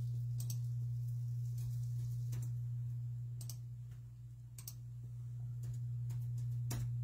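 Computer keys pressed one at a time, about eight scattered clicks roughly a second apart, over a steady low electrical hum.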